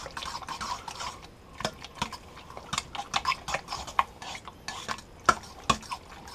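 A metal spoon stirring thick, wet ground bonefish paste in a stainless steel bowl, with irregular clinks and scrapes against the bowl, two or three a second.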